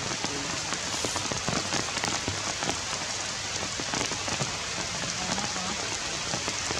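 Steady rain falling, with a constant hiss and many individual drops ticking close by.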